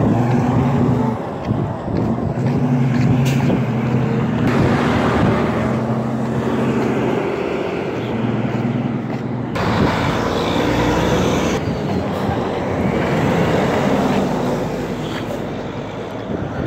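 Diesel trucks driving past one after another (a semi tractor, a rear-loader garbage truck, then a vacuum truck), their engines running steadily with road noise. The sound shifts about ten seconds in as one truck passes and the next approaches.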